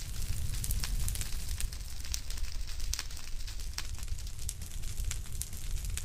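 Fire crackling: irregular sharp pops and snaps over a steady low rumble.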